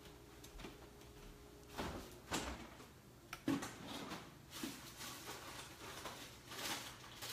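Faint scattered kitchen handling sounds: a few short knocks and rustles spread over several seconds, the first about two seconds in.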